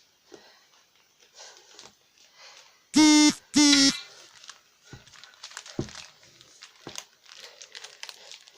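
Parcel packaging crinkling and rustling as it is unwrapped, with scattered small clicks and taps. About three seconds in come two short, loud, steady tones, one right after the other, the loudest sound here.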